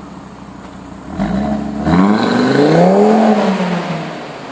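Audi TT RS's turbocharged 2.5-litre five-cylinder engine pulling away: from a steady run it revs up about a second in, climbs in pitch and loudness, then eases off near the end.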